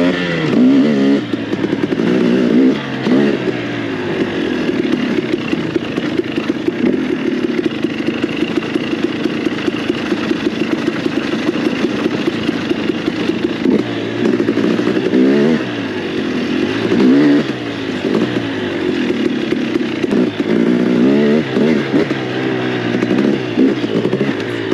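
KTM 300 EXC TPI's single-cylinder two-stroke engine pulling the bike along a dirt trail, its revs rising and falling with the throttle. It holds fairly steady for several seconds in the first half, then rises and drops repeatedly in the second half.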